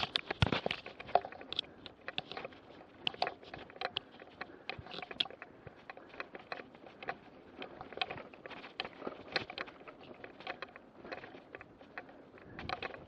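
Mountain bike rattling and clattering over a bumpy grass cart track, picked up by a camera mounted on the bike: many irregular clicks and knocks over a steady rush of tyre and wind noise.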